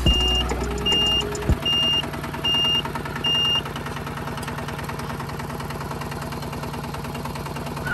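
Diesel tractor engine running steadily with a fast even chug, and a reversing alarm beeping four times in the first few seconds.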